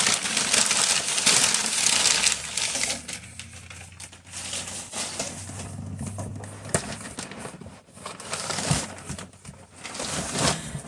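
Brown kraft packing paper crumpling and rustling loudly for the first couple of seconds as it is pulled out of a cardboard shipping box, then quieter rustling and scattered knocks of cardboard as the boxed electric skillet is lifted out.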